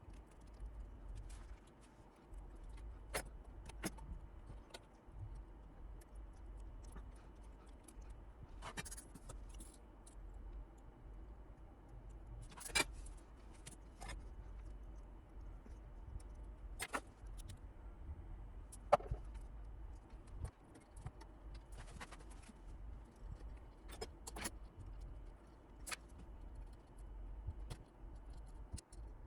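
Scattered light clicks and brief clinking rattles of small metal objects being handled, over a steady low hum.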